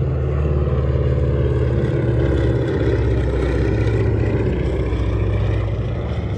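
Twin radial engines of a Beechcraft 18 droning steadily as it flies a low pass, the engine note dropping slightly as it goes by.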